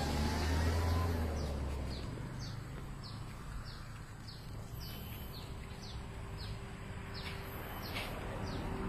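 A bird calling in a steady run of short, high, falling notes, about two a second. A low rumble sits on the microphone for the first two seconds.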